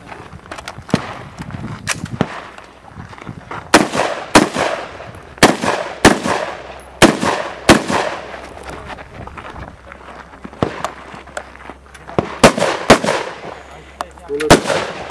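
Semi-automatic rifle fired in a run of IPSC stage shots, mostly in quick pairs about half a second apart with short pauses between groups, each shot followed by a brief echo.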